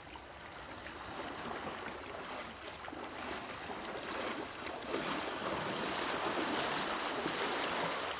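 Water rushing and washing, a steady noise with no pitch that swells louder through the second half.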